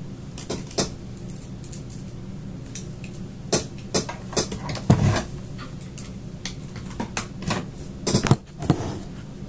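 Scattered clicks and knocks of a small plastic portable radio and its charger being handled and its buttons tried, with a heavier thump about five seconds in and a quick cluster of clicks near the end. A steady low hum runs underneath.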